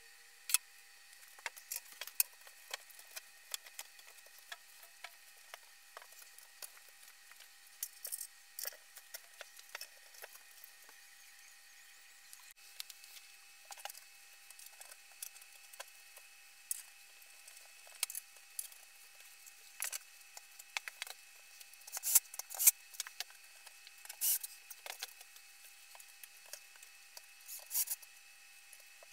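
Scattered knocks, clicks and scrapes of wooden crib panels being handled and fitted together during assembly, with a cluster of louder knocks about three quarters of the way through.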